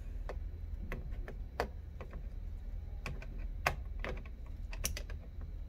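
Irregular light clicks as a small screwdriver turns and seats the last screw on a laptop's hinge, about a dozen clicks at uneven spacing, over a low steady hum.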